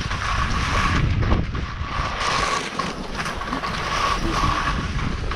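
Skis hissing and scraping through soft, tracked snow on a downhill run, with wind buffeting the helmet-mounted microphone.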